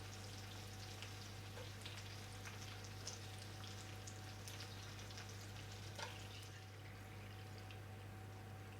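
Faint scattered crackling and ticks over a steady low hum, the crackling thinning out about six and a half seconds in.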